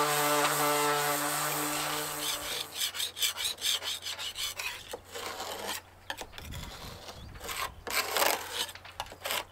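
Electric orbital sander running with a steady hum on the painted hull, cutting off about two and a half seconds in. Then a hand-held sanding pad rasps over the crazed paint in quick, uneven back-and-forth strokes.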